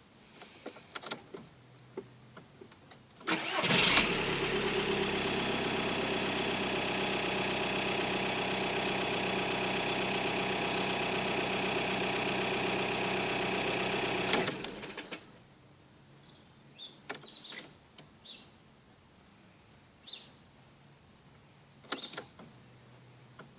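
Volkswagen Golf 130 PD's 1.9 TDI four-cylinder diesel starting about three seconds in, idling steadily for about ten seconds, then switched off. After shutdown, faint scattered clicks and ticks from the car: the new noise that appears after the ignition is turned off.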